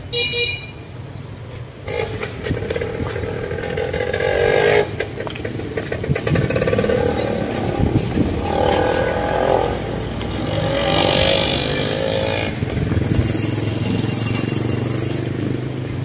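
Motorcycles passing on the street, their engines swelling and fading one after another. A brief high-pitched buzz comes near the end.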